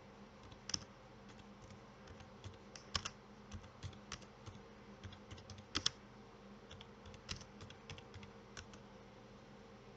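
Irregular sharp clicks and ticks, about a dozen scattered over several seconds, with a faint steady hum underneath.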